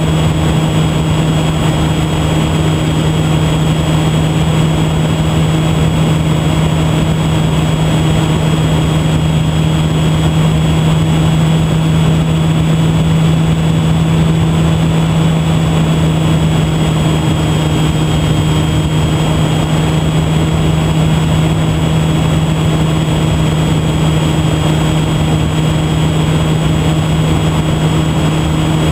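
Electric motor and propeller of a HobbyZone Super Cub RC plane with an E-flite Park 480 motor, heard from a camera on board in flight: a steady hum with a thin high whine over rushing air noise. The whine dips slightly in pitch about two-thirds of the way through.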